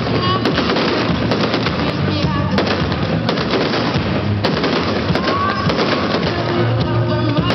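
Fireworks display going off in dense, rapid crackling and bangs, with music playing at the same time.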